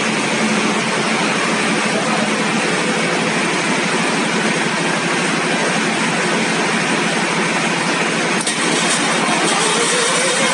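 Deutz 620-series V12 engine running steadily and loudly.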